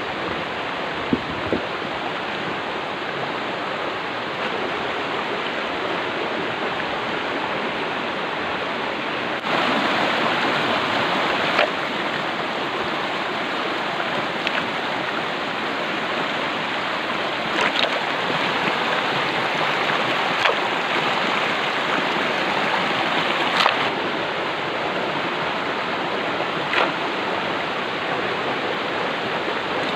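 Steady rush of flowing stream water, stepping up abruptly in loudness about ten seconds in, with a few short sharp clicks or splashes scattered through.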